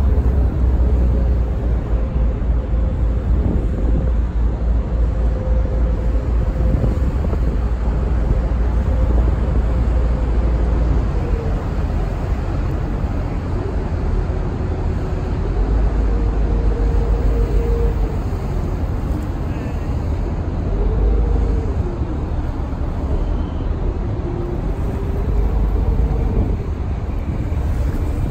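Staten Island Ferry under way: a steady drone of the boat with wind buffeting the microphone in an uneven low rumble, and a faint wavering tone drifting in and out.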